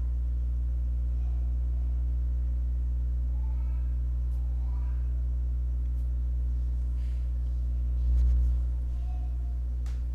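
A steady low hum that swells briefly about eight seconds in, with a faint voice in the background about three to five seconds in.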